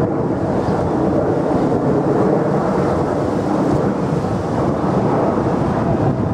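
Electric freight locomotive hauling a container train on the approach: a steady rumble of wheels on the rails and running gear.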